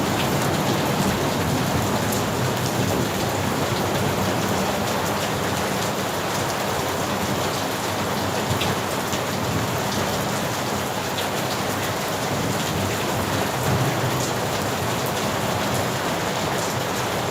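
Steady heavy rain, with a continuous hiss of rainfall and scattered individual drops ticking on a surface. A low rumble of thunder runs underneath, swelling slightly near the end.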